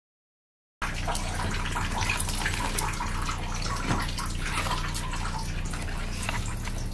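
Water running and splashing in a bathtub, with drips and small splashes. It starts abruptly about a second in.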